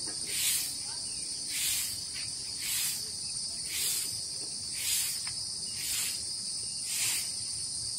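Insects shrilling in a steady high-pitched chorus that swells rhythmically about once a second.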